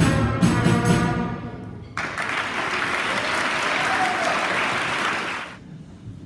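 A beginning school band plays the last notes of a piece, brass over steady drum strokes, dying away about two seconds in. Then the audience applauds for about three and a half seconds, and the applause cuts off suddenly.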